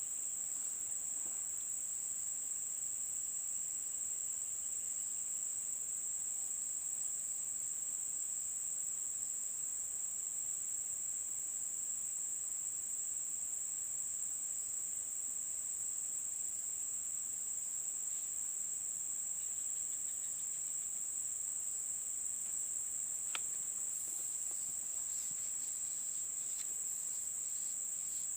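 Steady high-pitched insect chorus, one unbroken shrill tone, with a single faint click near the end.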